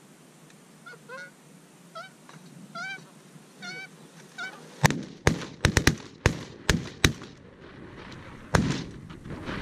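Canada geese honking repeatedly as a flock comes in, then a rapid volley of about eight shotgun blasts within a couple of seconds, and one more shot about a second and a half later.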